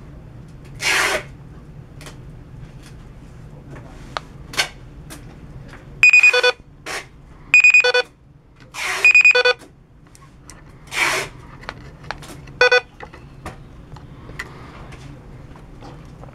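Short buzzy electronic beeps from a small loudspeaker driven by a VCM-N168 sound-playback board, four of them between about six and thirteen seconds in. Short hissing bursts and a few light clicks come in between, over a low hum.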